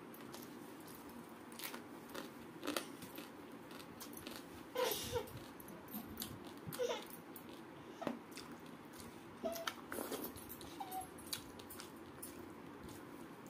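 Eating by hand: fingers mixing and scooping rice on a steel plate, with wet chewing and lip-smacking clicks. Several short squeaky whines are scattered through it.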